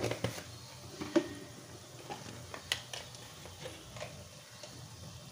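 Onions frying with a faint sizzle in a kadai, freshly topped with curry and chilli powder, with a few light clicks and knocks of utensils, the sharpest about a second in.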